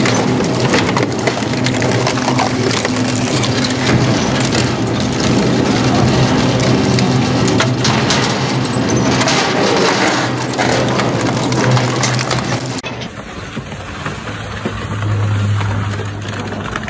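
Twin-shaft shredder's toothed rotors tearing and crushing metal cans: a dense grinding crunch with many sharp metal cracks over the steady hum of the drive. About thirteen seconds in it gives way to a quieter shredder running with a low hum as a blue sheet-metal part is fed in.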